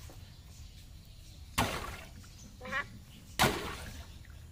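Two sharp knocks about two seconds apart from a wooden toy hammer swung at hanging water balloons, with a brief squeak between them.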